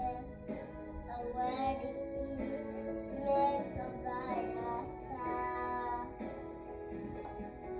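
Young child singing into a light-up toy karaoke microphone, with backing music playing along.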